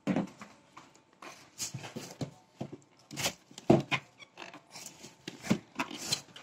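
Handling noise from rummaging in a cardboard box of firework packets: irregular rustles, crinkles and light knocks of plastic-wrapped packets and cardboard.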